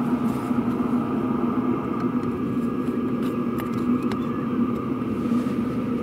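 Diesel heater exhaust running steadily out through two small stainless silencers daisy-chained on the exhaust pipe: a continuous drone with a low hum in it.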